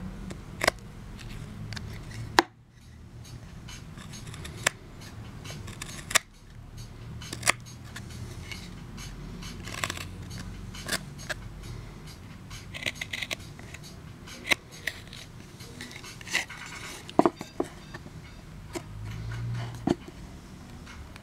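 Knife whittling wood: irregular sharp cuts and scrapes as shavings come off.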